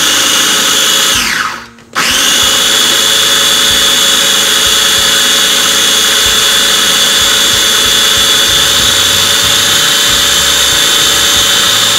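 Electric mini food processor running at full speed, chopping greens into a paste; its motor is steady. About a second in it is switched off and the pitch falls as it winds down, then it starts again abruptly and runs on.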